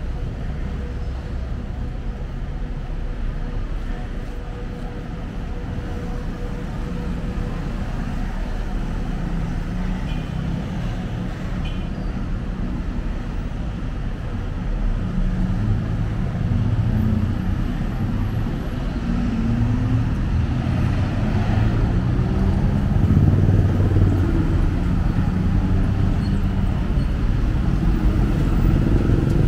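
City road traffic: a steady mix of passing vehicle engines and tyre noise, growing louder in the second half as vehicles pass closer.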